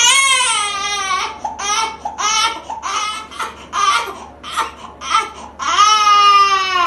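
A baby crying: a long wail, then a run of shorter sobbing cries, then another long wail near the end.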